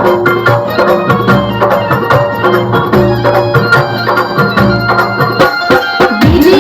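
Loud Indian folk-style music with a fast, regular drum beat and steady bass notes. Near the end it breaks into an electronic track with repeated sliding bass notes.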